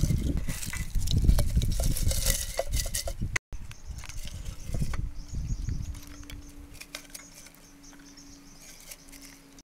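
Hands rustling and scraping as they pack leaves into a clay pot, with light clicks against the pot rim; after a cut, quieter handling as a whole fish is pushed in. A faint steady drone sets in behind it about halfway through.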